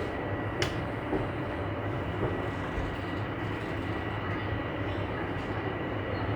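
Toronto subway train (TTC Line 1) running, heard from inside the car: a steady rumble and hiss with a faint steady high tone, and one sharp click about half a second in.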